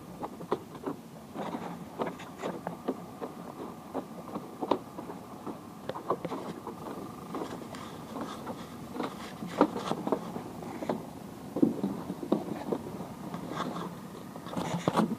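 Irregular knocks, clicks and creaks of a bamboo platform's frame and slatted floor being climbed over and walked on.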